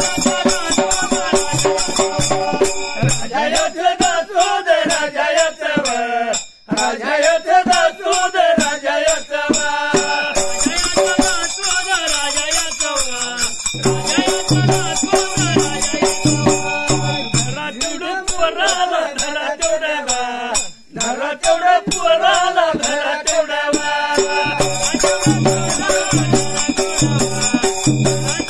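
Dhangari ovi folk singing by a male lead voice, accompanied by a dhol drum beating steadily and hand cymbals jingling throughout. The low drum strokes stand out more plainly in the second half.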